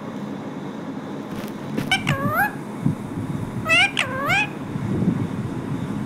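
Pet rose-ringed parakeet (Indian ringneck) calling twice, about two and four seconds in: each call is a short note followed by a longer one that dips then rises in pitch.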